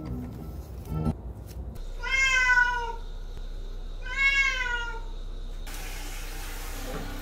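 A tabby cat meowing loudly twice, two drawn-out calls that rise and then fall in pitch: it is protesting at being carried in for a bath.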